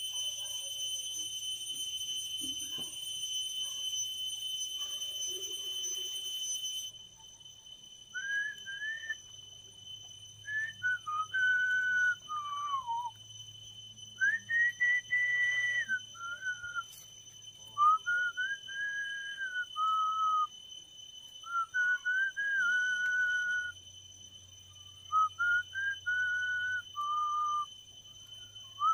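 A person whistling a slow tune in phrases of held and sliding notes, starting about eight seconds in. Before that a steady high-pitched buzz cuts off suddenly.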